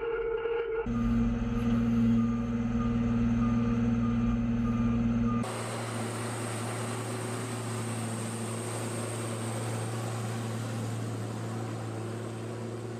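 Engine of a giant balloon-tyred off-road vehicle running at a steady speed with a low, even drone. A little after five seconds it changes abruptly to a more distant, hissier sound of the same engine.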